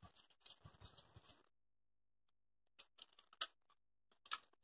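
Near silence with faint rustling and a few light clicks of hands handling and pressing EVA foam petals together; one click about three and a half seconds in is a little louder.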